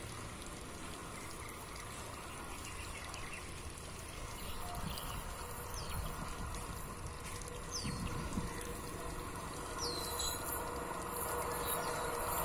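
Steady outdoor background hiss with a few short, high bird chirps in the middle, the overall level rising slowly toward the end.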